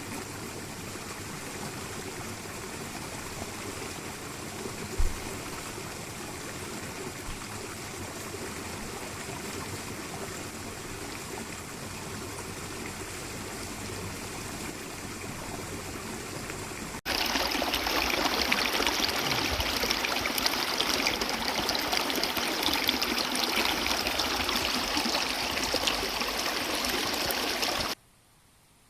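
Steady running water, with a single low thump about five seconds in; about 17 seconds in it cuts to louder, closer rushing water, which stops abruptly near the end.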